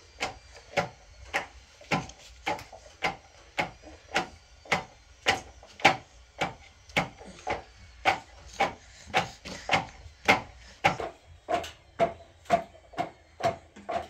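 Steady, even knocking at about two strikes a second, each a sharp separate knock.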